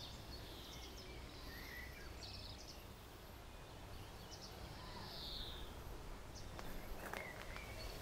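Faint outdoor garden ambience: small birds sing a few short, high chirps and phrases over a steady low background rumble. Near the end come a few footsteps on a gravel path.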